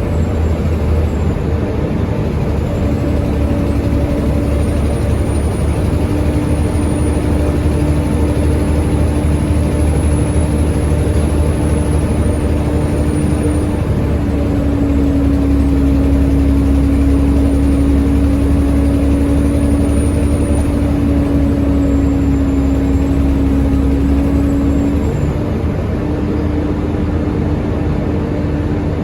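Volvo B7TL bus's six-cylinder diesel running under way, with a steady drone and a high turbo whistle that glides up and down: the loud turbo the owner calls permanent 'hoover mode'. The engine gets louder about halfway through and eases off near the end.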